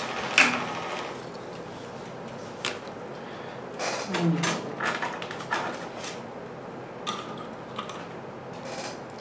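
Small tools being handled on a repair workbench: scattered light clicks and knocks, a busier cluster around the middle, over a steady low hiss.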